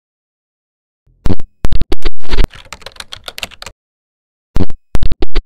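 Loud, rapid clatter of clicks like typing on a keyboard, in two runs. The first comes about a second in and trails off into softer ticking; the second, shorter run comes near the end.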